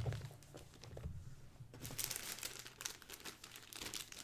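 Packaging being handled: cardboard and wrapping crinkling and rustling with many small crackles, thickest and loudest about two seconds in.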